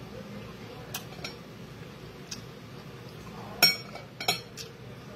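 Cutlery clinking against a plate while eating: a few light clicks, then two sharper clinks that ring briefly, about three and a half and four seconds in.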